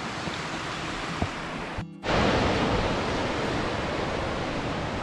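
A steady outdoor rushing noise that cuts off abruptly about two seconds in and comes straight back louder.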